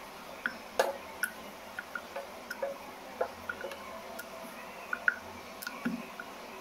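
Wooden rolling pin rolling out stiff poori dough on an oiled round wooden board, giving a string of light, irregular clicks and taps.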